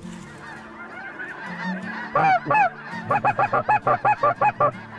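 A flock of snow geese honking. Faint chatter at first, loud calls from about two seconds in, then a fast run of short calls near the end.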